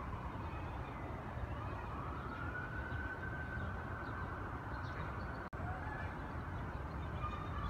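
Emergency-vehicle siren wailing, its pitch slowly rising and falling, over a steady low rumble. The sound cuts out for an instant about five and a half seconds in.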